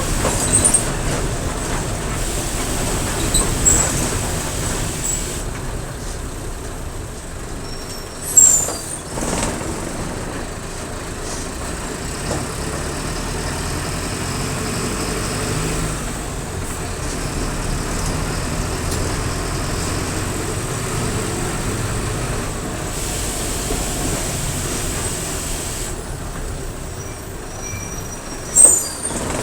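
Diesel engine of a Mercedes-Benz OF-1722M city bus running steadily as the bus drives. Two short, loud air-brake hisses break in, one about eight seconds in and one near the end.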